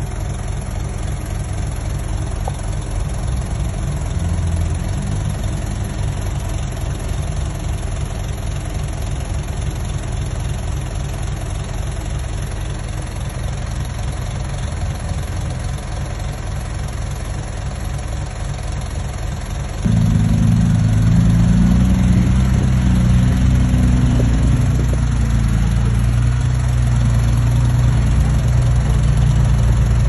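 Diesel dump truck engines idling with a steady low running sound. About two-thirds of the way through, the sound changes suddenly to a louder, deeper engine idle.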